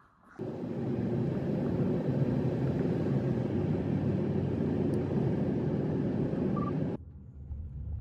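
Steady road and wind noise from a car driving at speed. About seven seconds in it drops abruptly to a quieter, low cabin rumble.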